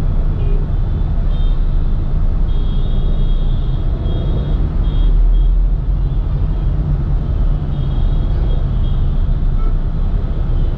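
Steady low rumble of vehicle engines and road noise in slow, dense city traffic, with a few faint, short high-pitched tones now and then.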